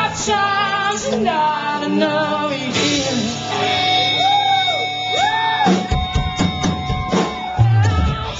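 Live rock band playing loud in a club. A sung line trails off in the first few seconds, then an electric guitar holds notes and bends two of them up and back down. About six seconds in, the drums and bass come in with heavy hits.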